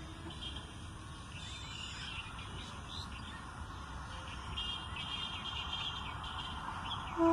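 A WAP-7 electric locomotive's horn cuts off just at the start. Then comes open-country ambience: a faint low rumble under many short, high chirping calls from small animals. The horn starts again at the very end.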